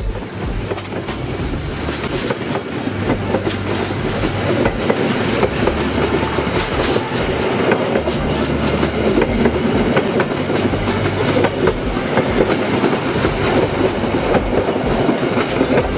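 Passenger train passing close by at speed: a steady rolling rush and rumble from the coaches, threaded with many quick clicks from the wheels on the rails, growing a little louder over the first few seconds.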